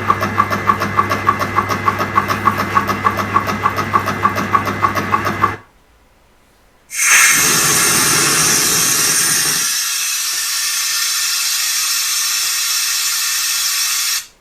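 Electric air compressor running with a steady mains hum and a regular pulsing about five times a second. It stops about five and a half seconds in, and after a short pause a loud, steady hiss of compressed air being let out starts and runs on almost to the end.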